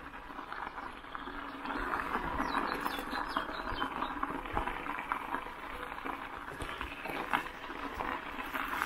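Bicycle tyres rolling over loose gravel, a steady crunching crackle, with a bird chirping several times briefly about two to four seconds in.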